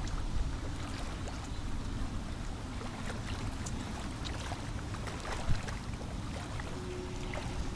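Wind buffeting the microphone over small waves lapping at the water's edge, with scattered small splashes and ticks. One louder thump comes about five and a half seconds in.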